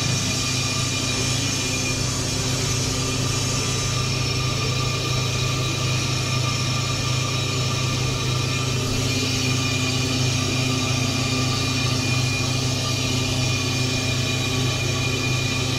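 Ammco 4000 brake lathe running steadily, its motor humming while the cutting bits take a light skim cut across a brake rotor.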